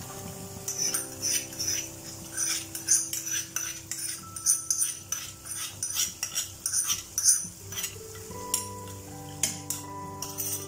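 Steel spoon stirring in a stainless steel pot of moong dal payasam: repeated clinks and scrapes of metal on metal, which thin out about eight seconds in, with a few more near the end.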